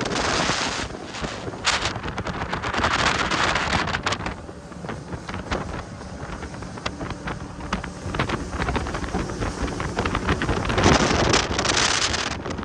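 Jet boat under way: wind buffeting the microphone over the rush of the boat's engine and water. The sound comes in surges, loudest in the first few seconds and again near the end.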